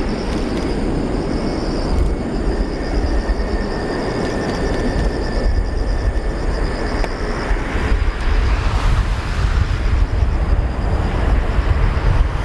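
An Airbus A330-900 airliner's Rolls-Royce Trent 7000 jet engines giving a steady low rumble on its landing run.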